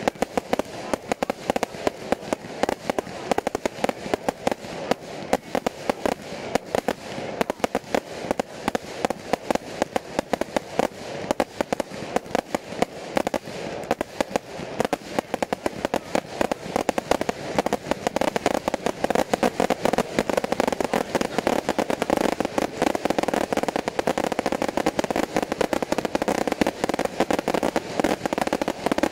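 Fireworks batteries firing in quick succession: a dense, unbroken run of bangs and crackling from aerial bursts. It grows a little denser and louder in the last third.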